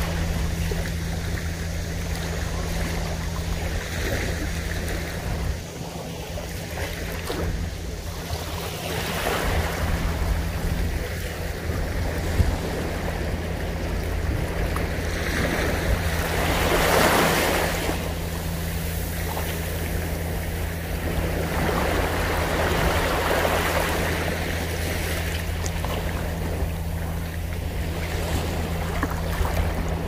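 Small waves breaking gently and washing up over sand and around rocks, swelling and easing every few seconds, the biggest surge about halfway through. A steady low hum runs underneath.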